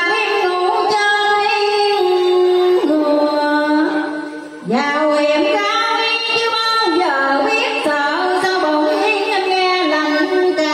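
A woman singing a Vietnamese song into a microphone over recorded backing music, with long held, wavering notes; the music dips briefly about four and a half seconds in, then picks up again.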